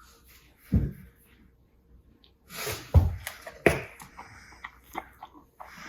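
Two heavy thumps, one about a second in and a louder one about three seconds in, with rustling and scraping around the second and scattered light clicks and knocks.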